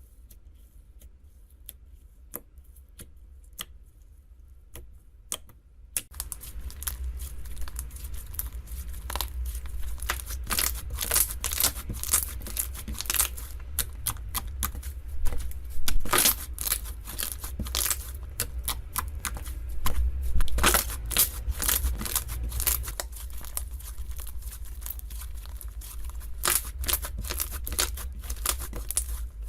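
Slime being worked by hand, squished and stretched so that it crackles and pops. The first few seconds hold only sparse, faint clicks, then it turns into loud, dense crackling about six seconds in.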